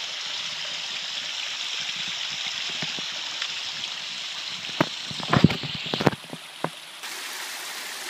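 Creek water at the foot of a small waterfall spilling and splashing over rocks, a steady rushing. A few short knocks about five to six seconds in are the loudest sounds.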